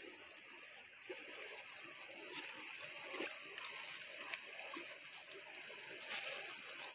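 Steady rushing of a flowing stream, with a few light clicks from close handling, the loudest about six seconds in.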